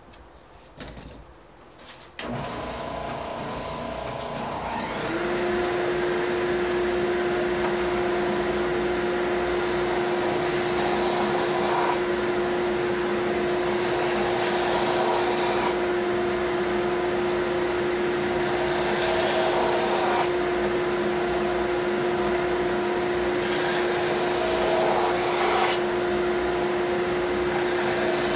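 A power sander switches on about two seconds in and runs steadily with a motor hum. Four or five times, wood pressed against the sandpaper adds a brief brighter hiss as ridges are sanded off a wooden bandsaw box part.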